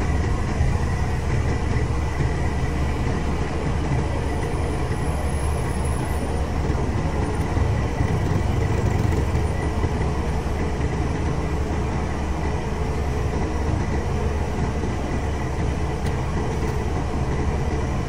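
Grove TM1500 truck crane's diesel engine running steadily with a low rumble, a faint thin steady whine above it.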